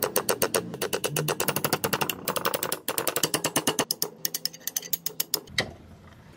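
Rapid metallic clicking, about eight strikes a second in three runs, as a steel chisel is driven through the eye of a Pulaski axe head, knocking out the old handle wood. It stops a little before the end.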